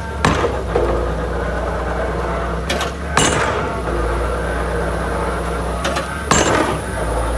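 An excavator-mounted drop hammer strikes a concrete pile three times, about three seconds apart, each heavy blow coming just after a lighter click. Under the blows, the excavator's engine runs steadily.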